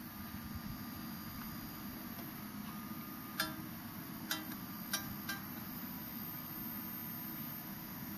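Sharp VZ-1500 record player's turntable motor and autoplay mechanism running with a faint steady hum, with four light clicks about three to five seconds in as the tonearm is moved over the spinning record.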